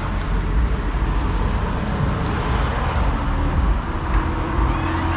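Electric pressure washer running and spraying soap through its foam cannon attachment: a steady rushing noise with a low rumble underneath.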